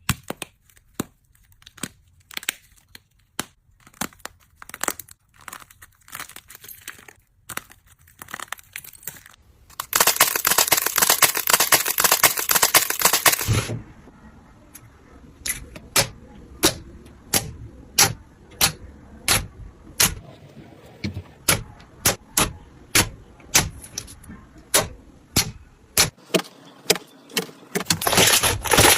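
Slime being squished and poked, making crisp clicks and crackles: a few seconds of dense crackling about a third of the way in, then a steady run of sharp pops about two a second, and another burst of crackling near the end.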